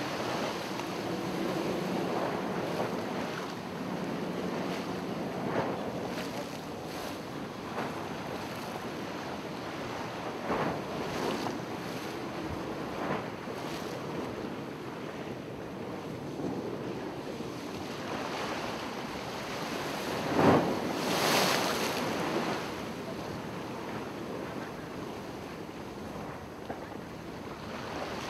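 Ocean waves washing in with wind buffeting the microphone. A low steady hum runs under it for the first six seconds or so, and about twenty seconds in a thump is followed by a louder wave wash.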